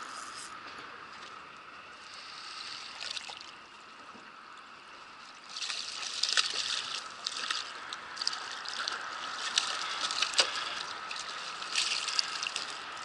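Water splashing and sloshing as a hooked remora is scooped up in a landing net and lifted out of the river, water pouring and trickling out of the mesh. The first few seconds hold only a quieter steady hiss; the splashing starts about five and a half seconds in and comes in irregular bursts.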